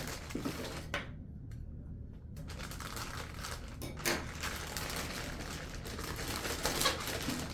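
A shipping package being handled: light crinkling of its plastic or paper wrapping with scattered clicks and taps, and a few sharper knocks about a second in, about four seconds in and near the end.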